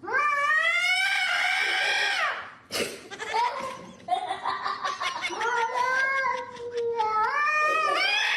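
A cat meowing in long, drawn-out calls: one rising and held for about two seconds, then a longer wavering call, and another rising call near the end.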